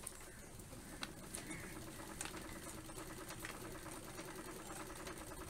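Treadle sewing machine running steadily, a continuous stitching whirr that starts about half a second in, with a few light clicks over it.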